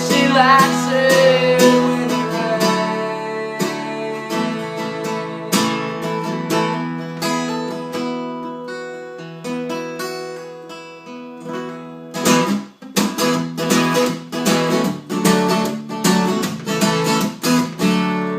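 Acoustic guitar strummed in a song's closing bars. The chords ring and slowly fade over the first twelve seconds or so, then after a brief break a quicker run of strums comes near the end.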